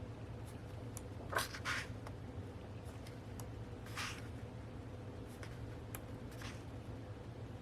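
Pages of a photobook being turned and handled: a few short papery rustles, two close together about a second and a half in and others near four and six and a half seconds, over a steady low hum.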